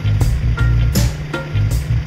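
Background music with a steady drumbeat over a bass line.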